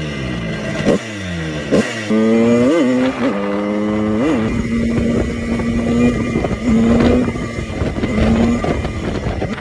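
Moped engine under way as it is ridden: its pitch falls, then climbs and drops sharply twice in the first four seconds as it goes up through the gears, then holds a steady cruising note.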